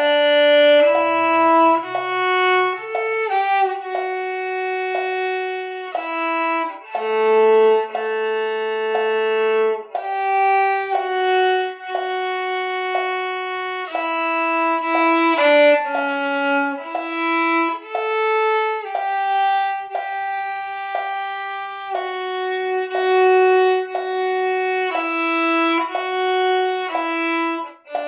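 Solo viola bowed in a slow, smooth melody of long held notes, one note at a time, without accompaniment.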